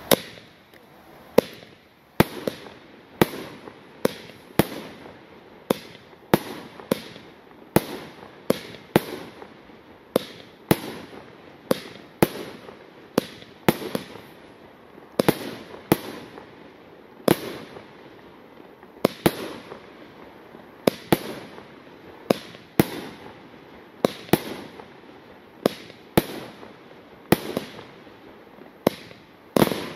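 El Gato Kamuro 45-shot F3 firework battery firing in quick succession: a sharp bang about once a second, some closer together, each followed by a fading hiss.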